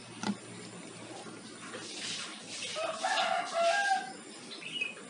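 A chicken calling for about a second, roughly three seconds in, over the scrape and clink of a fork and spoon working through fish on a plate; a sharp click comes near the start.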